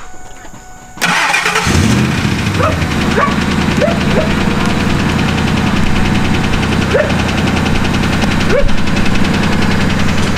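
Ford F-150 engine cranking briefly and starting about a second in, then idling steadily with an engine tapping.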